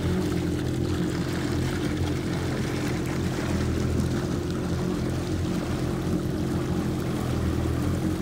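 Personal watercraft (jet ski) engine running at a steady, unchanging speed, with a hiss of water over it.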